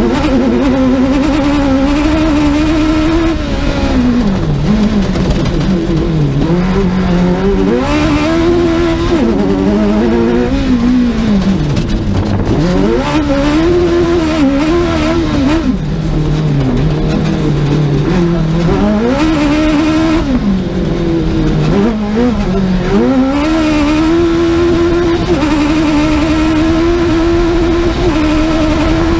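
Suzuki two-wheel-drive rally car's engine at full stage pace. The revs climb and drop again and again through gear changes, with deeper dips where it slows and picks up again, then hold high and steady near the end.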